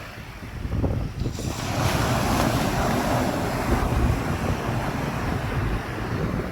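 North Sea surf: a wave breaks and washes in, swelling about one and a half seconds in and easing off after about four seconds, with wind buffeting the microphone as a steady low rumble.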